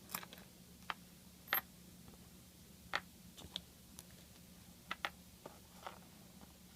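Scattered light clicks and taps of small plastic parts and hardware being handled, about a dozen at irregular intervals, over a faint steady hum.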